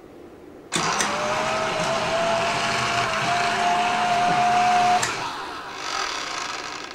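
Roomba 4110 robot vacuum's motors start abruptly and run with a loud hiss and a steady whine that creeps slightly up in pitch, then drop to a quieter, fading sound at about five seconds. The robot is trying to dock but cannot.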